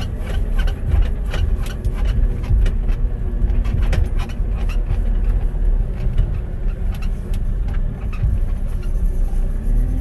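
JCB telehandler's diesel engine running steadily, heard from inside the cab as the machine drives through floodwater, with scattered knocks and splashes over the low rumble.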